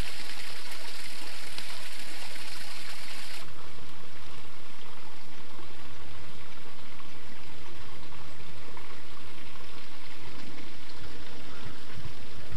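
Thin stream of water falling from a rock spout into a pond: a steady splashing hiss. About three and a half seconds in it cuts off abruptly, leaving a fainter, duller water hiss with a low rumble under it.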